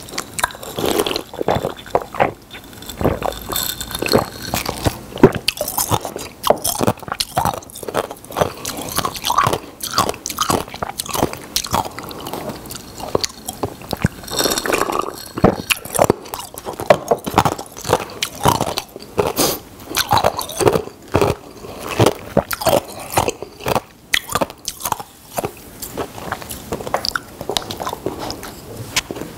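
Close-miked eating and drinking sounds: irregular chewing, smacking and swallowing, with sips from a glass of cola.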